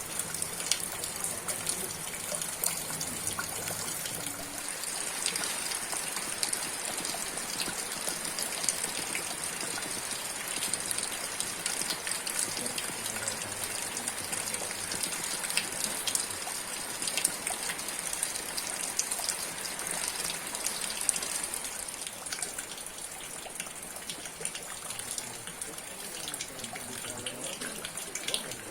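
Rain falling steadily: a dense hiss with many scattered sharper drop taps, a little softer over the last several seconds.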